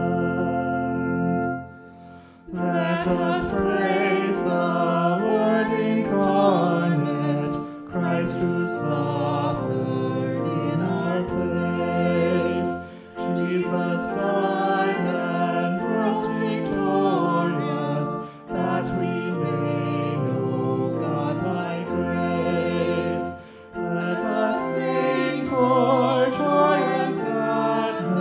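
A hymn with organ accompaniment: a held chord ends about two seconds in, and after a short pause a woman's solo voice sings the next verse, with brief breaths between phrases.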